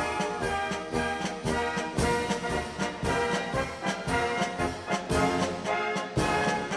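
Background music with brass and a steady beat.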